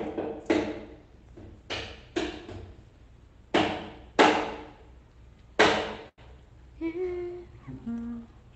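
A hard brown coconut being knocked against a hard surface to crack it open: about seven heavy, hollow knocks at uneven intervals, each ringing briefly.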